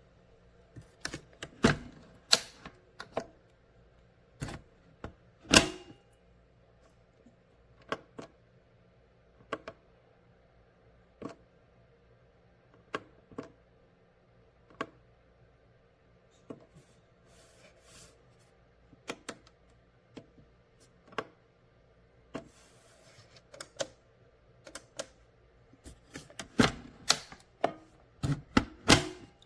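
Scattered sharp clicks and light knocks, bunched together near the start and near the end and spaced about a second or two apart in between, over a faint steady hum.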